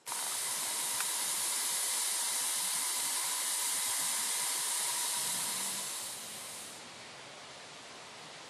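Loud, steady hiss of escaping steam that starts suddenly and eases off to a softer hiss about six and a half seconds in.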